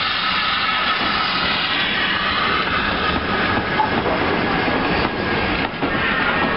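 Saddle-tank steam locomotive and its passenger coaches passing close by at steady speed, the coaches' wheels clattering over the rail joints.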